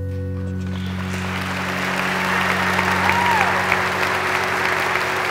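Church congregation applauding the newly pronounced couple, the clapping swelling from about a second in, over sustained music.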